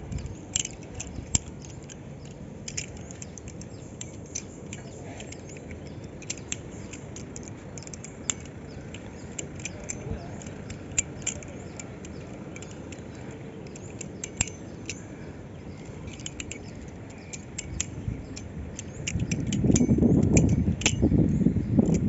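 Balisong (butterfly knife) trainer being flipped: its metal handles and blade clack and click irregularly, many sharp ticks a few seconds apart. About nineteen seconds in a louder low rumble rises and lasts for a few seconds.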